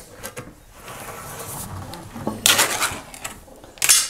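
Pull-ring lid of a metal food-storage can being pried up and peeled back: faint scraping, then two loud, short bursts as the lid tears away, about two and a half seconds in and again near the end.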